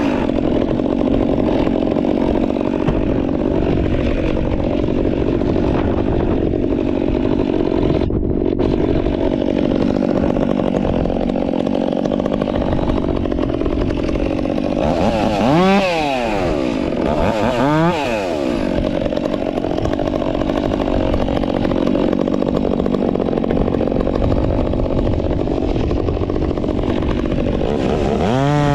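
Stihl MS 362 two-stroke chainsaw with a straight-shot performance muffler, running at full throttle under steady load as in a cut. The revs drop and climb back twice in quick succession midway, and the saw revs up freely near the end.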